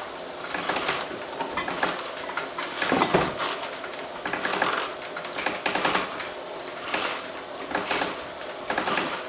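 A gear juicer grinding raw coconut pieces as a wooden plunger twists and pushes them down onto the gears. The sound comes in uneven clattering bursts, the strongest about three seconds in. The juicer's outlet is adjusted too tight, so the pulp moves through slowly.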